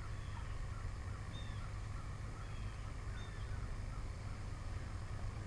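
Open-water ambience: a steady low rumble, with faint birds calling, short chirps about twice a second and a few brief higher whistled notes.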